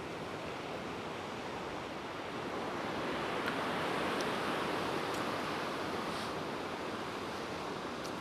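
Heavy ocean surf breaking and washing against the rocks of a river-mouth jetty, a continuous rush that swells about three seconds in and eases off near the end. Some wind on the microphone.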